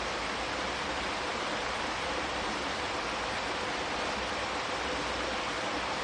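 Steady rushing water, an even, unbroken hiss with no distinct splashes or other events.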